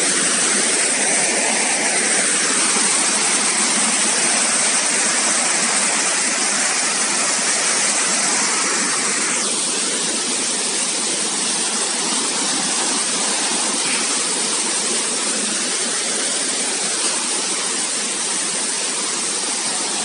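Waterfall in heavy flow, water falling over rock ledges in a steady, dense rush that eases slightly about halfway through.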